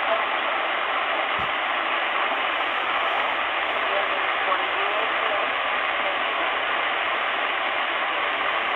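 A Sangean ATS-909X2 receiving the Royal Air Force weather broadcast on 5450 kHz in upper sideband: a steady hiss of shortwave static, with a weak voice barely rising above the noise.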